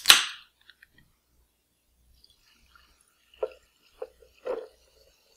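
A can of seltzer water cracked open with a short, sharp hiss, then seltzer poured from the can onto ice in a blender jar, splashing in three short gushes over about a second, roughly three and a half seconds in.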